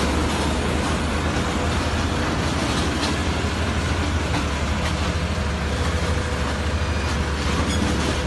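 Steady engine rumble with a hiss over it and a faint steady hum, unchanging throughout.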